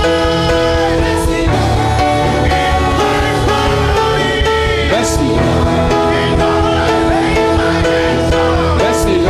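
Gospel worship music: held chords with many voices singing over them, the chord changing about a second and a half in.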